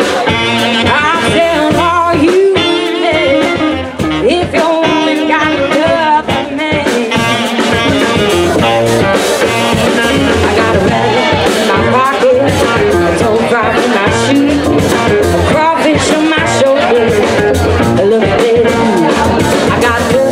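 A woman sings lead into a microphone over a live band playing continuously.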